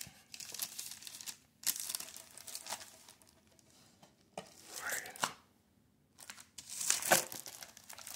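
Plastic bag crinkling in irregular bursts as it is handled, with brief pauses between handlings.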